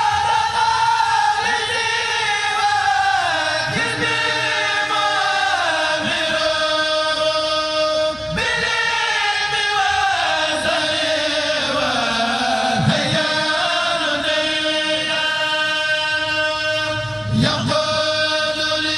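A kourel of voices chanting a Mouride xassida (religious poem) together, long held notes sliding slowly from pitch to pitch.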